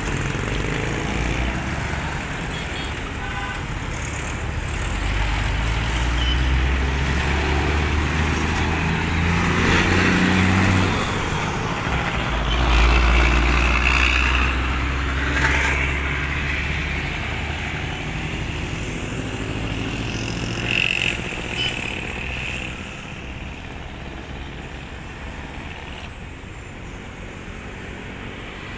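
Heavy trucks' diesel engines and tyres passing close by on a highway, with a deep engine rumble that is loudest around ten and thirteen seconds in. After that the traffic settles to a lower steady hum.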